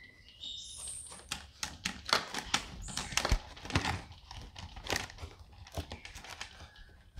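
Kitchen knife cutting into a whole green-skinned pumpkin: a run of irregular short crunches and scrapes as the blade works through the hard rind.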